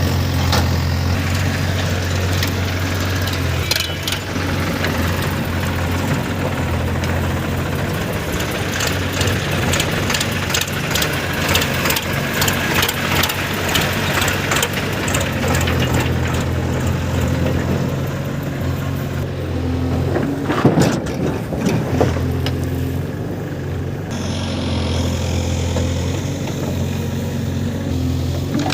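Diesel engine of a JCB 3DX backhoe loader running at a steady speed while it works, with scattered knocks and clatter and a louder burst of knocks about 21 seconds in.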